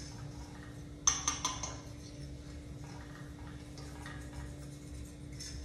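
A metal spoon clinking and tapping against a skillet in a quick cluster about a second in, as a heaping tablespoon of flour goes into the oil for gravy. A steady hum runs underneath.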